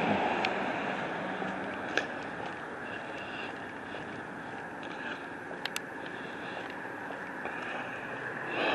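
Street traffic noise: a vehicle passing and fading away at the start and another approaching near the end, with a few faint clicks in between.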